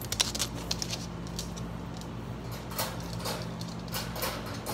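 Light metallic clicking and rattling of a wire dog crate's door and latch being handled. There is a run of quick clicks in the first second, then a few softer rattles about three to four and a half seconds in.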